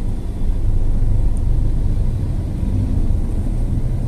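Car engine and road noise while driving, a steady low rumble.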